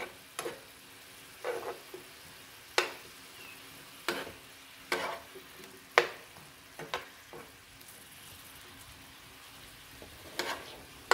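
Metal spoon stirring spinach and carrots in a frying pan, clinking and scraping against the pan in irregular strokes, with a pause in the second half, over a faint sizzle of the vegetables cooking as the spinach wilts.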